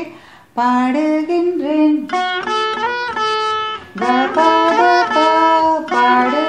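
Saraswati veena playing a slow Carnatic melodic phrase: a handful of plucked notes, each held and bent into sliding pitch ornaments (gamakas), starting after a brief pause.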